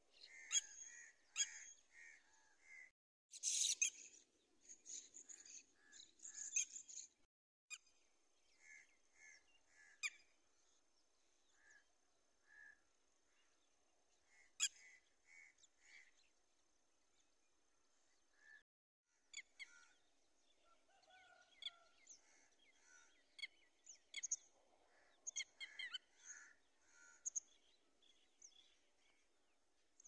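Red-wattled lapwing calling in faint series of short, repeated notes, several to a burst, mixed with thinner high chirps. A steady thin high tone runs through the middle stretch.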